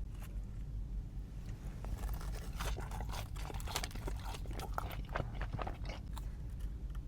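A person biting into and chewing crispy fried food, a rapid crackle of crunches that gets dense about two seconds in.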